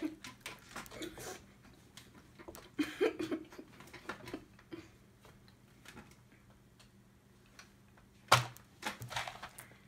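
A boy's soft giggle about three seconds in, among scattered small clicks and taps at a table, with one sharper knock about eight seconds in.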